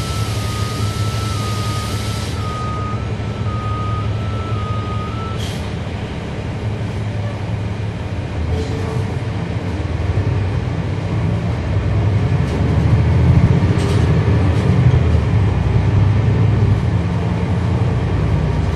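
Inside a transit bus, its Cummins ISL9 inline-six diesel runs steadily while a two-tone warning beep alternates until about five seconds in, then stops with a click. The engine then pulls the bus away, growing louder as it accelerates, with hardly any whine from the ZF Ecolife automatic transmission.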